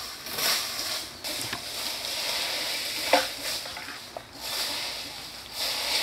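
A rake scraping and rustling through a thick layer of dry fallen leaves on bare ground: a crackly rustle that swells with each stroke at an uneven pace.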